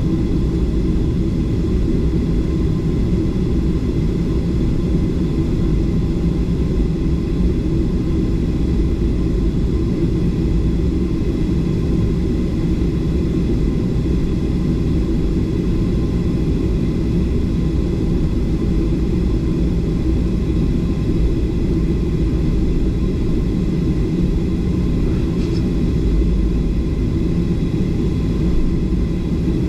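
Steady airliner cabin rumble from the jet engines and airflow inside a Southwest Airlines Boeing 737, with a few faint steady tones above the low drone.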